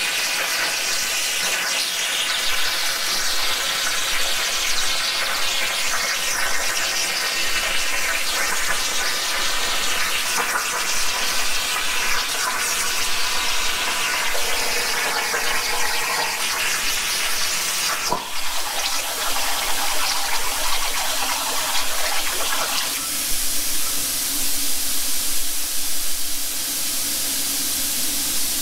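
Plasma cutting torch of a 45-amp Razorweld plasma cutter cutting steel on a CNC table: a steady, loud hiss of arc and compressed air. There is a sharp click about 18 seconds in. A few seconds later it changes to a brighter, airier hiss with a low hum, the torch's air running on after the arc has gone out.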